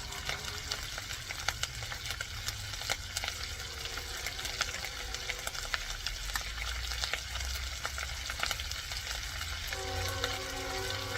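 Dried fish (galunggong) frying in hot oil in a pan: a steady sizzle with many sharp spattering crackles. A faint steady humming tone joins near the end.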